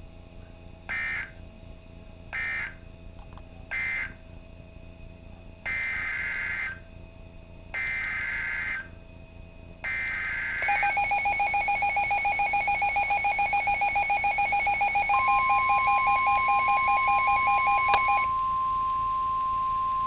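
NOAA Weather Radio SAME data bursts through a Midland weather alert radio's speaker: three short bursts that close the previous alert, then three longer bursts of about a second each that carry the header for the new warning. Next comes the radio's own rapidly pulsing two-tone alarm beep. About two-thirds of the way through, the steady 1050 Hz warning alert tone joins in and carries on after the beeping stops.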